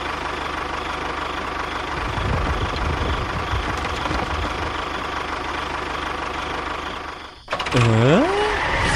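Small engine of a DIY miniature tractor running steadily. It cuts off abruptly near the end, followed by a short, louder pitched sound that slides down and then back up.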